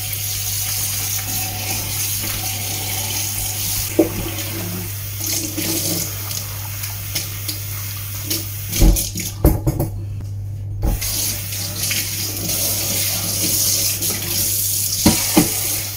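Kitchen tap running into a bowl of raw shrimp at the sink as hands wash them in the water. The water stops for about two seconds just past the middle, with a few knocks of the bowl around then, and runs again after.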